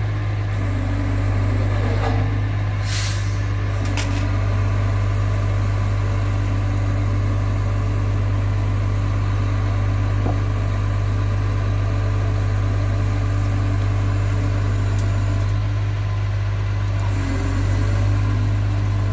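Diesel crane truck's engine running steadily at idle while its truck-mounted crane holds a suspended steel beam. There is a short hiss about three seconds in and a click a second later.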